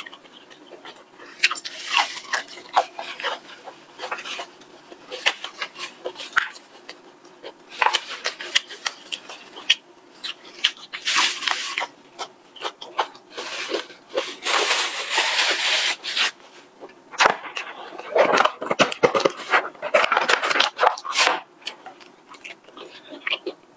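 Close-miked crunching and chewing of a breaded fried chicken cutlet, with crisp crackles from the coating, mixed with the crinkling of thin disposable plastic gloves; longer bursts of crackling come in the middle and again towards the end.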